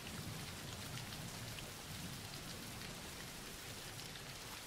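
Recorded background rain: a soft, steady hiss of rainfall with faint scattered drops.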